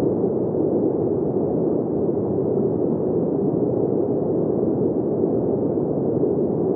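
Steady wind sound, a low, muffled rushing that stays even throughout with no gusts or breaks.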